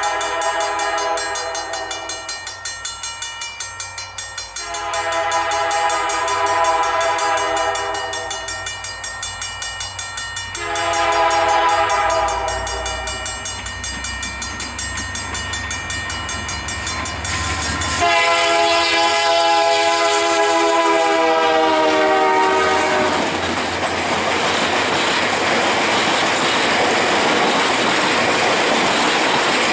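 Diesel passenger train led by EMD F40PH-2 locomotives, its air horn sounding in four long blasts; the last and loudest, about 18 s in, drops slightly in pitch as the locomotive passes, over a building diesel engine rumble. From about 23 s in come steady rolling and clickety-clack as the stainless-steel passenger cars go by.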